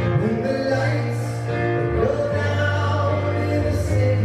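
Live baby grand piano music, steady low bass notes under the melody, with a man singing over it through a microphone.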